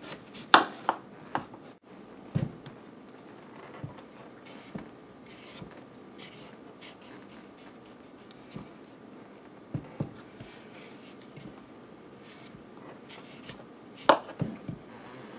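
Paring knife cutting the skin off a sweet potato: soft scraping slices with a few sharper knocks, the loudest in the first second and a half and again about a second before the end.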